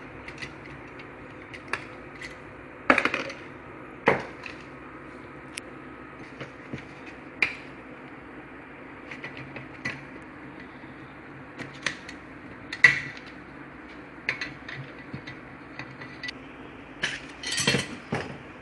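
Irregular clicks, clinks and knocks of hand tools and metal parts being handled, scattered through the stretch, with a few louder knocks.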